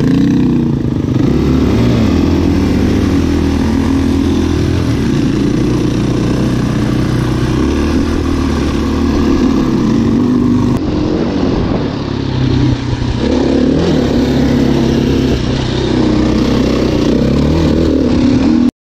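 Dirt bike engine running under load from the bike itself, revving up and down as it rides through sand, easing off briefly about two-thirds of the way through, then cutting off suddenly near the end.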